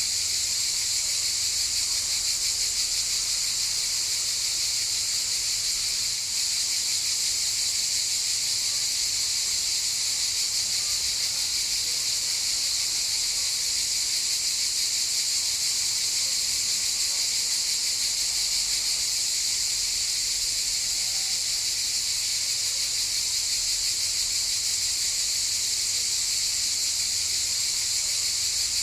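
Cicadas in chorus: a steady, unbroken high-pitched buzz.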